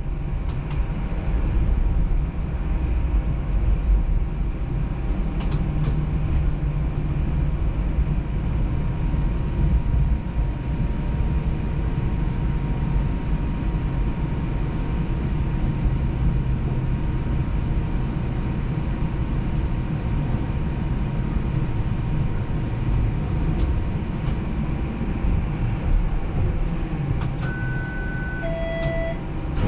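A Toronto Flexity Outlook streetcar running, heard from inside the car: a steady low rumble with a faint steady whine. Near the end comes a short two-note electronic chime, high then low.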